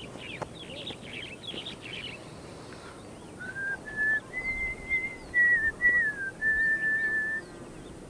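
A person whistling a short tune in clear held notes that step up and down, starting about three and a half seconds in. Faint bird chirps come before it.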